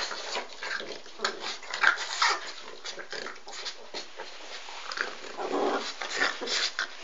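Two bulldogs, one a French bulldog, playing tug-of-war with a rope toy, making a rapid string of short, rough grunts and growls.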